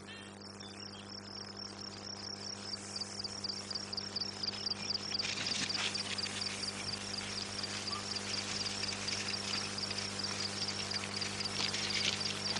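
Crickets chirping in a steady rhythm, several chirps a second, the chorus growing louder about five seconds in.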